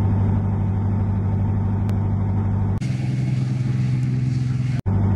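Heavy armoured vehicle's engine running with a steady low drone. About three seconds in, the sound cuts and the drone runs higher for two seconds. After a brief dropout it returns to the lower pitch.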